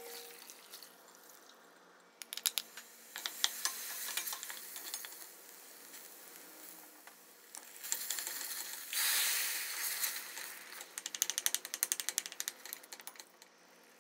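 Cooking in a stainless steel pot: a spoon knocks and scrapes against the pot. About nine seconds in, oil sizzles as onion and tomato paste fry, and near the end there is a quick run of clicks from stirring.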